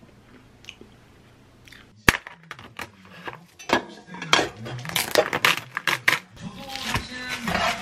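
A few faint clinks of a spoon in a bowl, then about two seconds in a sharp snap and a run of crackling as the film lid of a plastic meat tray is peeled back, over background music.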